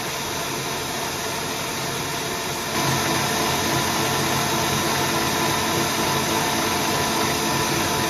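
Electric stand mixer running, its whisk beating egg whites and sugar into a meringue in a stainless steel bowl. It is a steady motor hum with the whisk's whirr, and gets louder about three seconds in.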